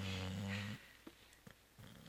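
Labrador retriever snoring in deep sleep: one loud, low, pitched snore that stops under a second in, a couple of small clicks in the pause, and the next snore starting faintly near the end.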